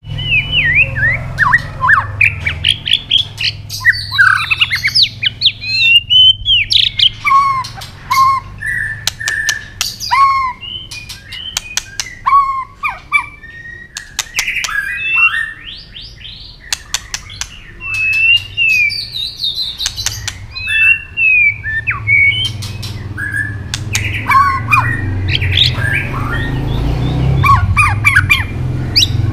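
White-rumped shama in fired-up fighting song: rapid varied whistled phrases with rising and falling notes, interrupted again and again by sharp 'tạch' clicks.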